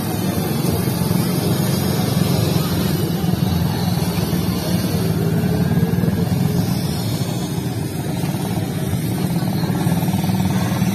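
Small quad bikes running as they are ridden around a dirt track, giving a steady engine drone.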